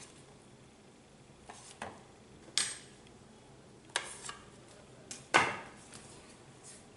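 Metal knife clicking and knocking against a plate while cutting a stuffed bread sandwich in two: a handful of short, sharp clicks, the loudest about five seconds in.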